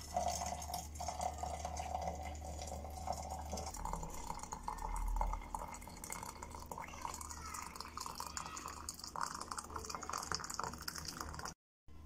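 Water poured from a stainless steel kettle into a small stainless steel teapot over loose green tea leaves, a continuous splashing stream as the pot fills. It cuts off abruptly near the end.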